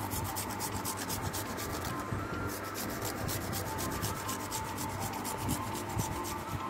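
Raw green mango being grated on a handheld metal grater: quick rasping strokes, several a second.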